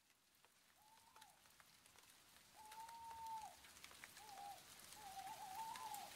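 Near silence, with faint, slightly wavering high-pitched tones, each held for about a second, that slowly grow louder. A few faint clicks are scattered through.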